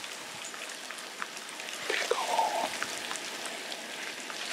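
Light rain pattering, a steady hiss dotted with small drop ticks, with one short pitched sound about two seconds in.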